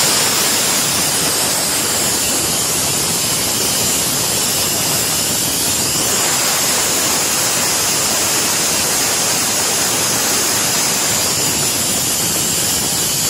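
Screw air compressor venting air in a loud, steady hiss after coming off load at its upper pressure setting of about 110–125 psi, running unloaded as its motor current falls.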